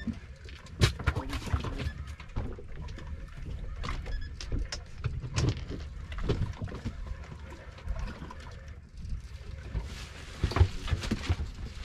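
Uneven wind rumble on the microphone on a small fishing boat at sea, with scattered knocks and clicks from gear and the hull; the sharpest knocks come about a second in and again near the end.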